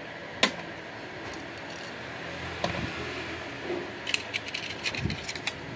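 Metal parts of a removed air-cooler motor and its loose nuts being handled: a few sharp metallic clicks and clinks, one about half a second in, another near three seconds, and a quick cluster of them near the end.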